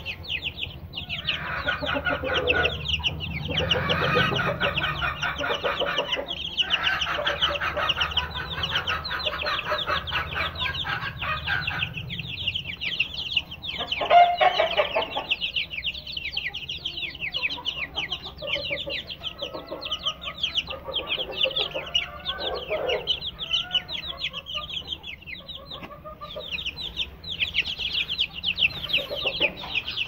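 Aseel chicks peeping all together: a steady stream of short, high, falling chirps overlapping one another, with lower clucking calls mixed in, most of them in the first half.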